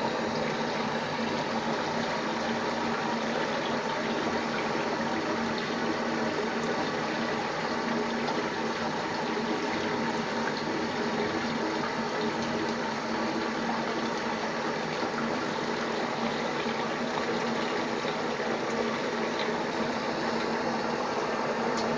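Bathtub tap running in a steady, unbroken rush of water.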